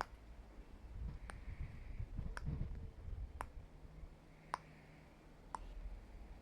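A series of sharp, light clicks at about one a second, over a faint low rumble.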